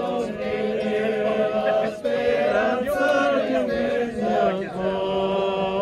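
A group of voices singing a folk song together unaccompanied, in long held notes of several parts at once.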